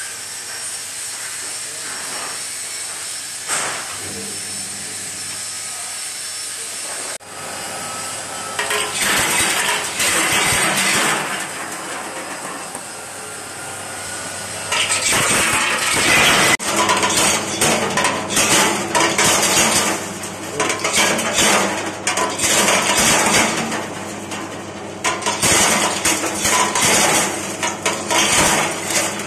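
Candlenut shell-cracking machine running with a steady motor hum. About eight seconds in, a dense clatter of hard nuts and shell pieces rattling and cracking inside it starts. It eases off briefly and then stays loud and busy from about fifteen seconds on.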